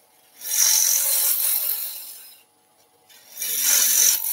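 Bowl gouge making pull cuts into a spinning sycamore blank on a wood lathe, with a hissing shear of shavings. There are two cutting passes of about two seconds each, separated by a brief near-silent pause.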